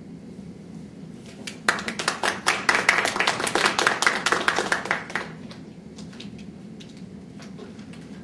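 A small audience clapping for about three and a half seconds, starting about a second and a half in and stopping fairly abruptly.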